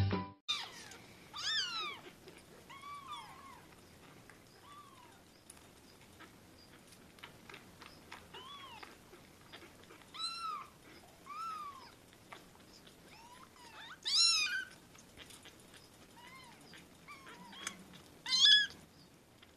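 Tiny kittens mewing while being bottle-fed: a string of short, thin, high-pitched mews, each rising and falling, a few of them louder than the rest.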